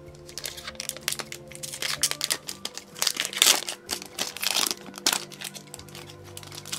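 Foil trading-card booster pack wrapper crinkling as it is handled and torn open, in dense irregular crackles that are loudest from about three to four and a half seconds in, over soft background music.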